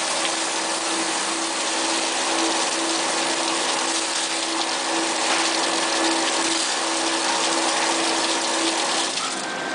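Quench water spraying onto a shaft in an induction hardening machine: a loud, steady rushing hiss with a steady hum underneath. The hum cuts off about nine seconds in.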